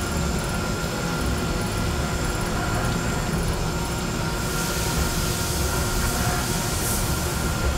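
Five-axis CNC machining centre milling titanium with a 3/8-inch ball end mill under flood coolant, spindle at about 5,100 rpm: a steady machine hum with a few held tones. A hiss swells in about four and a half seconds in and fades about two seconds later.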